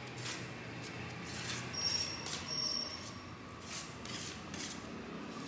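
Steel putty knife scraping and spreading white texture paste across a wall in short, irregular strokes.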